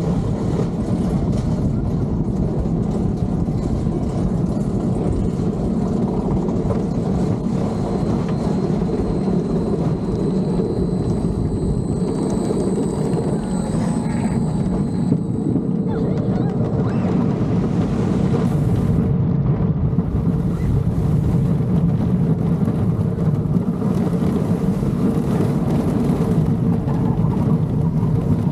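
Roller coaster chain lift pulling a wooden coaster car up the lift hill with a steady mechanical clatter. About 18 seconds in, the car crests the lift and runs on down the track; from there the sound turns slightly louder, with rushing wind and track noise.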